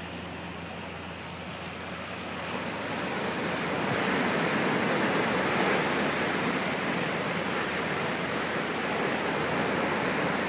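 Ocean surf breaking and washing up the sand, a steady rushing noise that grows louder about three seconds in.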